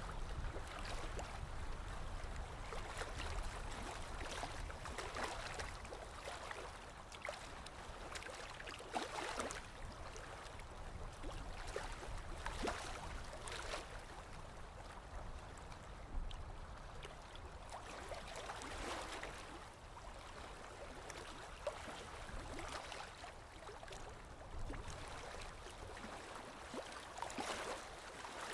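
Stream water lapping and trickling, with small splashes swelling and easing every few seconds.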